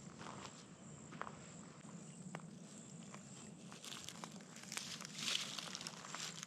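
A hiker's footsteps on a forest trail: faint crunching steps and rustles, thickening into a louder run of crunches about four to five and a half seconds in.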